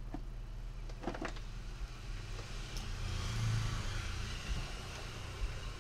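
A motor vehicle passing, swelling to a peak about three and a half seconds in and then fading, over a steady electrical hum. There are a few light clicks about a second in.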